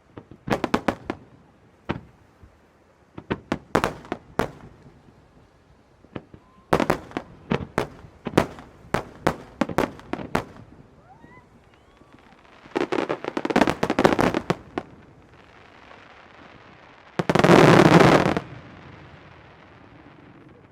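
Fireworks bursting overhead: volleys of sharp bangs in quick succession, then a dense crackling rattle. Near the end comes the loudest part, a continuous crackle about a second long that fades into a low rumble.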